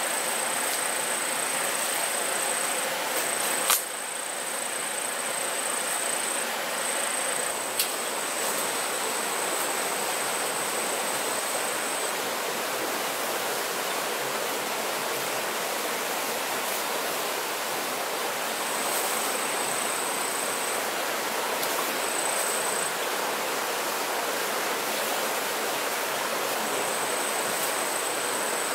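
Steady rush of a stream running nearby, with an insect's high, thin buzz that starts and stops several times. Two short sharp clicks stand out, one about four seconds in and one about eight seconds in.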